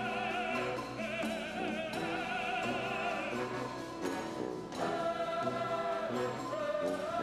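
Male voice singing in an operatic style with wide vibrato over a symphony orchestra, with a new held phrase starting a little after the midpoint.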